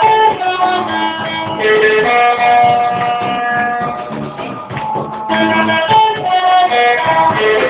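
A small band playing: plucked strings under a melody of long held notes.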